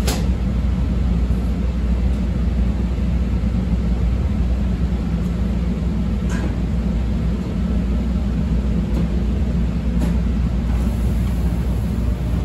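Inside a CTA 5000-series rapid transit car running on the rails: a steady low rumble, with a few sharp clicks spread through it.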